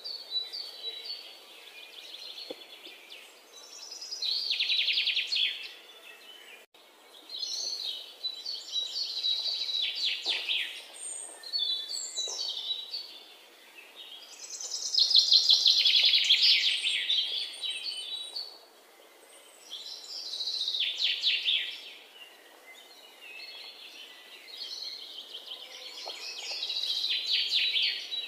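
Songbirds singing: phrases of rapid trills every few seconds, with a thin, steady high chirp between them.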